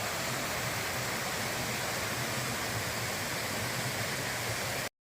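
Mountain brook rushing steadily over boulders, a continuous roar of water that cuts off suddenly near the end.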